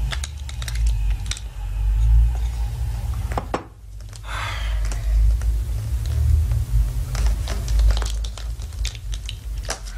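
Scattered clicks and knocks of glassware and household handling over a low steady hum, with a short pour of drink into a glass about four seconds in.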